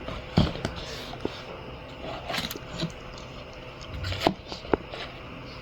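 Scattered sharp clicks and knocks with some light scraping and rustling, like small objects such as a box, case or glasses being handled.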